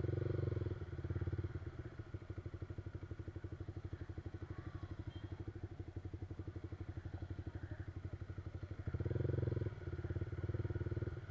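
Yamaha R15's single-cylinder engine through an Akrapovic aftermarket exhaust, running at low revs with a steady, rapid train of exhaust pulses. It briefly gets louder at the start and again about nine seconds in, as the throttle is opened a little.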